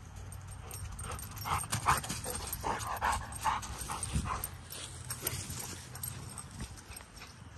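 A dog giving a quick run of short whines from about a second in until past the middle, while playing. Dry leaves crackle under its paws.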